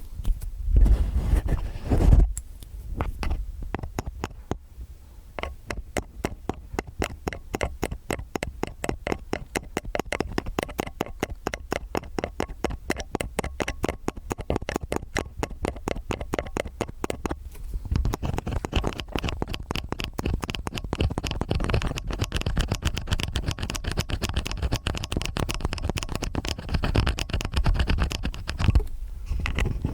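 Stainless steel ear picks scraping in both ears, a fast, steady run of scratchy strokes. A few low thumps sound in the first couple of seconds.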